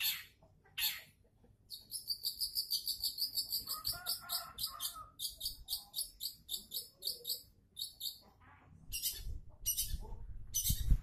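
Long-tailed shrike (cendet) calling: a harsh rasping call, then a fast chattering run of sharp high notes, about seven a second, for several seconds. More harsh rasping calls come near the end.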